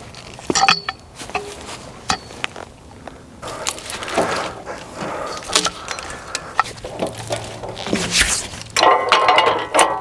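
A pine log being rolled over with a cant hook on a sawmill's steel bed: irregular knocks and clanks of the steel hook and the log against the bed, with rasping of bark, louder and denser near the end.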